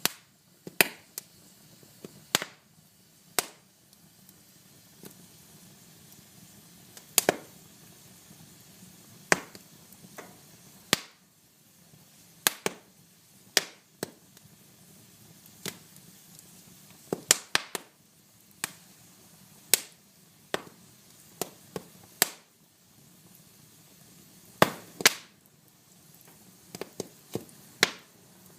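Wood fire crackling: sharp, irregular pops and snaps, roughly one a second, some in quick pairs, over a faint steady hiss.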